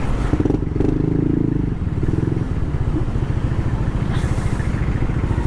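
Yamaha NMAX 2020 scooter's single-cylinder engine running, a steady low rumble of rapid firing pulses, briefly stronger in the first couple of seconds.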